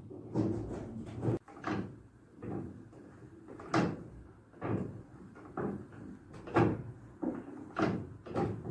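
The wooden drive machinery of a working Dutch grain windmill turning, with creaking knocks repeating roughly once a second over a low rumble.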